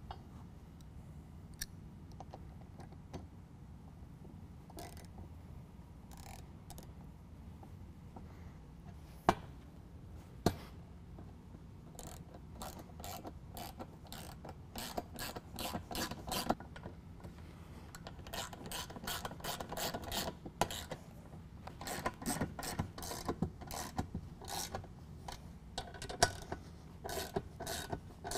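Hand ratchet wrench clicking in rapid runs as bolts are tightened into the plow's mounting bracket, starting about twelve seconds in and growing denser; before that, only a few scattered clicks and knocks.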